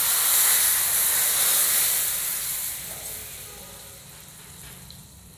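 Hot tadka of oil or ghee with whole red chillies and garlic sizzling loudly as it meets the cooked moong-masoor dal, the hiss dying down over the second half.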